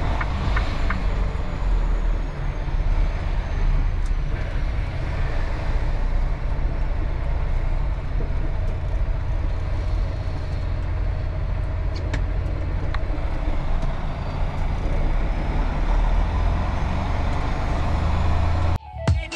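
Semi-truck's diesel engine running under way, heard from inside the cab as a steady low rumble with road noise and a few faint clicks. Near the end it cuts off suddenly into music.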